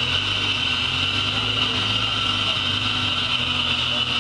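Suzuki Samurai 4x4's engine running at low, steady revs as it crawls down a steep dirt bank, with a steady high-pitched tone above it.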